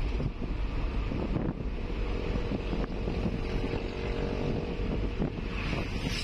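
Steady engine and road rumble inside the cab of a vehicle cruising on a highway, with wind noise over it.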